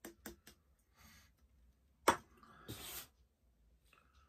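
A few small clicks as the last of a 12-ounce can of cider is tipped out over a pint glass, then one sharp knock about two seconds in as the aluminium can is set down on the counter, followed by a short rustling hiss.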